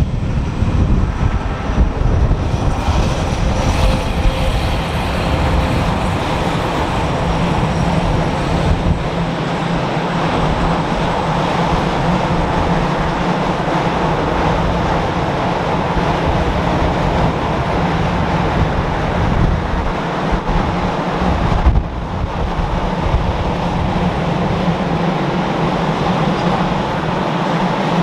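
Electric-hauled freight train of empty double-deck car-carrier wagons rolling past close by: a steady rumble of wheels on the rails with a low hum running under it.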